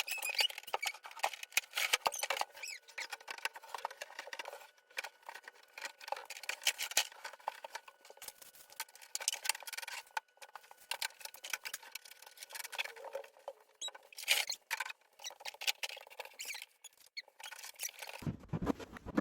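Irregular crackling and rustling, like plastic packaging and parts being handled while a toy playground is unboxed. A fuller, lower-pitched sound cuts in abruptly near the end.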